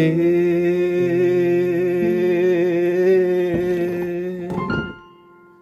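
A man's voice holding one long sung note with vibrato over guitar chords that change beneath it about once a second. Voice and guitar fade out about five seconds in, leaving a faint ringing chord.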